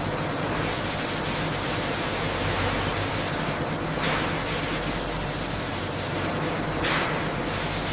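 Steady rushing hiss over a low, even machine hum, like industrial equipment running, with the hiss swelling briefly a few times.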